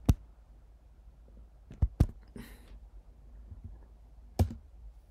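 Four sharp, separate clicks from working a computer's keyboard and mouse: one at the start, a quick pair about two seconds in, and one more near the end.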